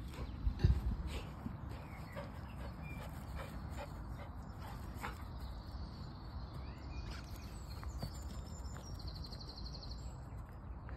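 Outdoor ambience of steady low rumble with faint scattered bird chirps and a brief rapid trill near the end; a single loud thump about half a second in.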